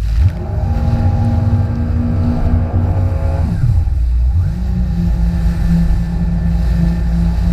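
Jet ski engine running at speed; its pitch drops about three and a half seconds in, then holds steady again a moment later.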